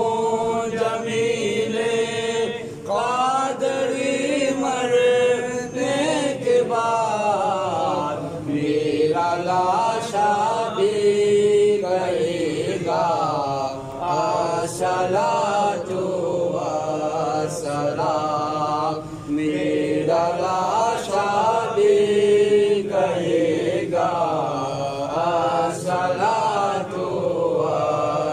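A man chanting in Arabic into a microphone and heard through the mosque's loudspeakers, a devotional chant of long held notes with short breaks for breath.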